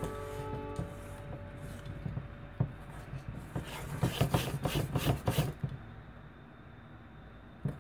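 A utensil stirring and folding thick batter in a stainless steel bowl, with wet scraping strokes and light clicks against the metal, busiest in the middle and quieter near the end.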